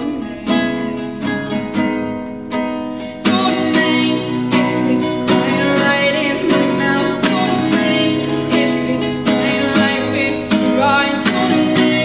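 A girl singing to her own nylon-string classical guitar, strummed in a steady rhythm; the music gets louder about three seconds in.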